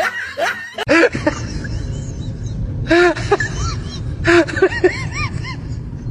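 About a second in, music and laughter cut off. Then an animal gives a series of short squeaky calls that rise and fall in pitch, several in quick runs, over a steady low rumble.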